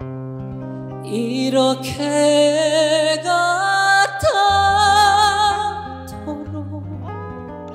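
A male trot singer sings a slow ballad line over band accompaniment. His voice comes in about a second in, steps between long held notes with vibrato, and fades out near the end while the backing carries on.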